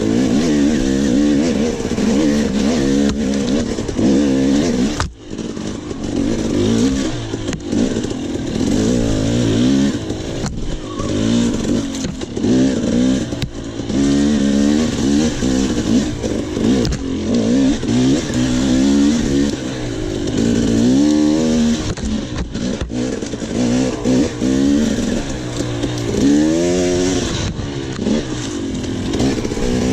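Enduro dirt bike engine revving hard, its pitch rising and falling constantly as the rider works the throttle and gears, with a brief cut about five seconds in.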